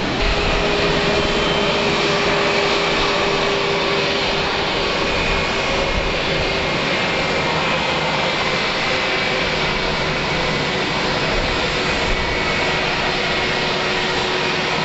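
Airbus A321's twin jet engines running at low power as it taxis: a steady whining hum with a held tone.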